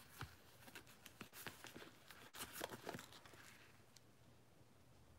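Faint handling noises, light taps and soft rustles, as shoes and their packaging are moved, over the first three seconds or so, then near silence.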